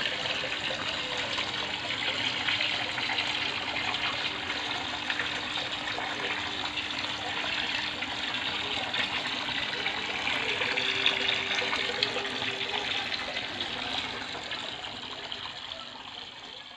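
A crowd of koi splashing and churning at the water surface as they feed, a steady watery splashing that fades out near the end.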